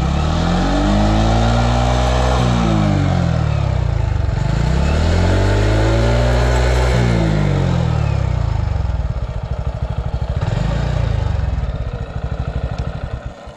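TVS XL100 Heavy Duty moped's small single-cylinder four-stroke, fuel-injected engine heard at the exhaust: revved up and let back down twice, then idling, its level dropping near the end.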